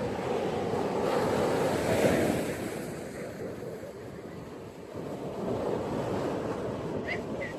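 Ocean waves breaking and washing up on a beach: one wave swells to its loudest about two seconds in and falls away, and the next rolls in about five seconds in. Two short high chirps sound near the end.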